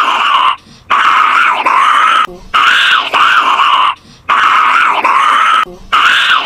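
A monkey call played over and over: four nearly identical calls, each about a second and a half long with short breaks between them, repeating like a looped recording.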